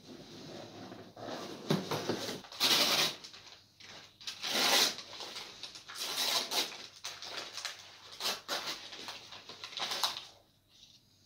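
Brown kraft paper wrapping rustling and crinkling in irregular bursts as hands unfold it from around a potted plant. It goes quiet shortly before the end.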